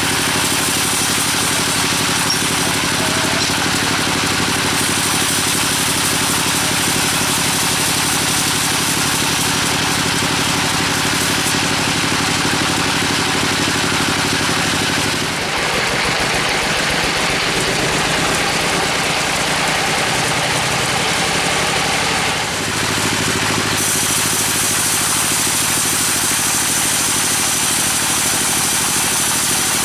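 A steady engine-driven saw runs throughout. For about seven seconds in the middle its low hum thins and a harsher, higher sound rises, then it settles back to the earlier steady running.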